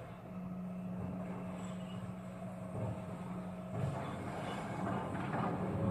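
Refuse lorry's engine running steadily at the kerb, muffled through a window pane; about four seconds in it grows rougher and a little louder.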